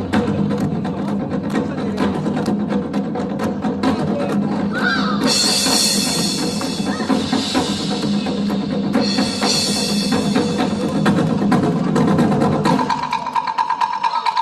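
Live percussion ensemble drumming: many drums struck together in a dense, fast rhythm. A bright high hiss joins from about five to ten seconds in, and near the end the low drums drop away, leaving a fast, even roll.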